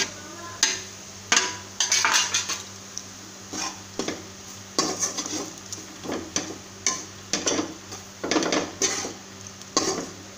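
Metal spoon scraping and clanking against a steel kadhai in irregular strokes, stirring gram flour (besan) into fried onion-garlic masala to roast it.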